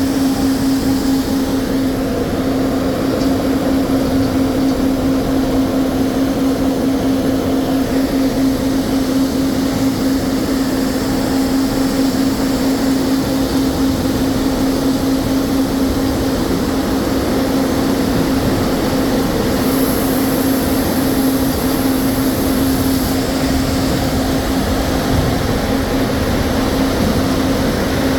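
Sawmill machinery running: a loud, constant hum over a steady mechanical din, with a thin high whine joining for a few seconds about twenty seconds in.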